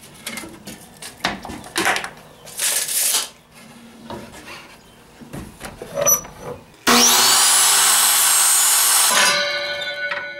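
Clicks and rubbing as a tape measure and a wooden dowel are handled on a chop saw's table. About seven seconds in, the electric chop saw starts with a quick rising whine and runs for about two seconds, cutting through the poplar dowel. It then spins down with a ringing hum that slowly fades.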